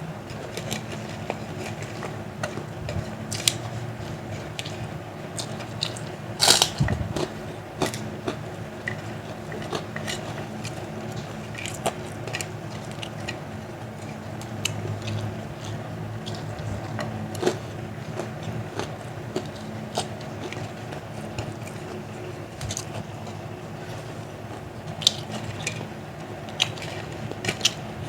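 Biting and chewing crunchy fried food, kerupuk crackers and fried nuggets, with scattered crisp crunches, the loudest about six and a half seconds in, over a steady low hum.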